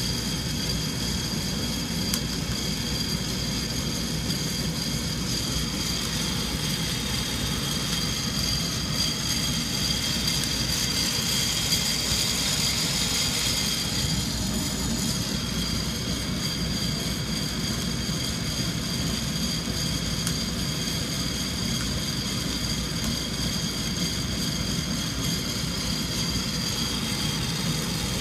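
Sonofresco fluid bed coffee roaster's hot-air blower running steadily with a high whine as it churns the beans in the roasting chamber. A few scattered pops of the beans at first crack.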